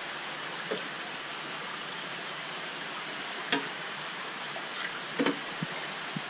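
Steady rush of running water in an aquarium, with a few short knocks as the landing net holding the catfish is lowered into the tank.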